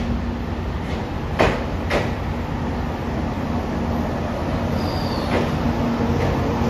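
Express train creeping slowly alongside a platform, a steady low rumble and hum. There are two sharp clunks about a second and a half in, half a second apart, and a brief high squeal near five seconds, typical of brakes as it slows.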